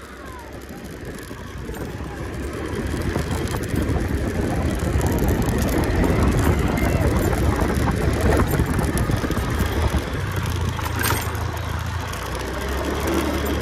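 A vehicle's engine running steadily as it travels along a dirt road, with wind and road rumble that grow louder over the first few seconds as it picks up speed.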